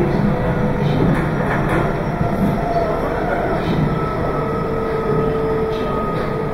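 Meitetsu 2200 series electric train running along the line, heard from inside the lead car: a steady rumble of wheels on rail, with faint steady tones above it.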